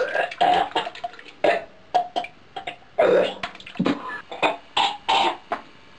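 A person's voice making short, harsh, wordless throat noises like burps and coughs, several in a row with gaps between them, mixed with a few sharp clicks.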